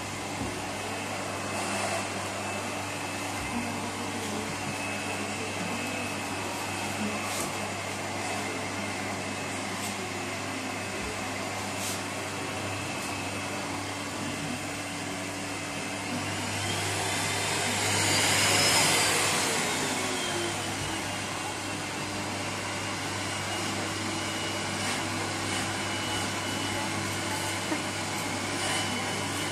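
Vacuum cleaner running steadily, heard at its hose. About halfway through, its whine rises in pitch and grows louder, then falls back over about four seconds.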